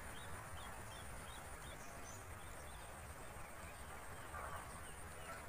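A small bird chirping a quick run of about five short, high notes during the first two seconds, over faint steady background noise.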